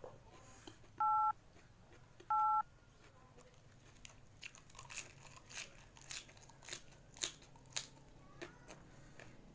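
Two short electronic two-tone beeps, like telephone keypad tones, about a second and a half apart, then a run of crisp crunches, roughly two a second, from chewing raw cabbage leaf.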